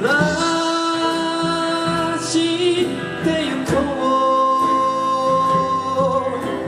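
Live band music of a slow folk ballad, with long held sung notes.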